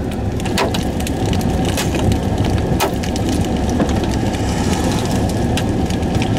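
Hailstones striking the storm-chase vehicle: about a dozen sharp, irregular knocks over a steady low rumble of wind.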